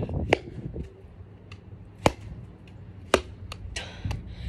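An apple inside a sock swung overhead and slammed down: several sharp whacks roughly a second apart, with a swish of the swing before one near the end.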